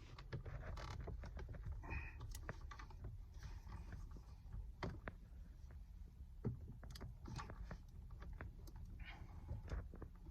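Scattered light clicks and creaks of hand work on a car's steering wheel with a screwdriver and plastic trim, at irregular intervals.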